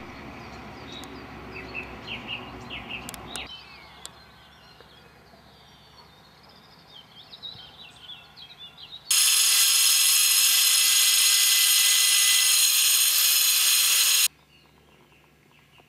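Angle grinder cutting a board: a loud, steady, high whine for about five seconds, starting about nine seconds in and cutting off abruptly. Before it, birds chirp faintly outdoors.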